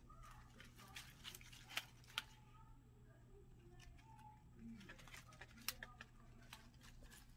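Pet rats rummaging in a potted lettuce plant: faint, scattered crisp snaps and crackles of lettuce leaves, the sharpest ones about two seconds in and again just past halfway.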